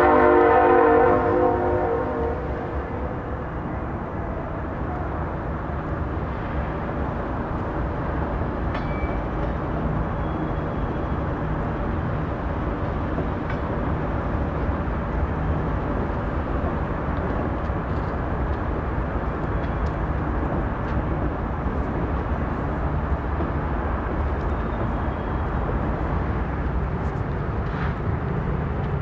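CSX diesel freight locomotive's horn sounding a chord that fades out in the first couple of seconds, then the steady rumble of the locomotives and freight cars rolling past.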